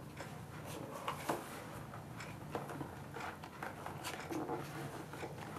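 Faint rustling and small clicks of a cardboard box and the papers inside it being opened and handled, over a low steady hum in the room.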